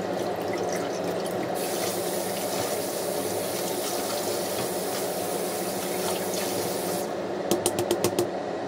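Kitchen tap running into a sink while broccoli florets are rinsed in a plastic colander. Near the end there is a quick run of sharp clicks.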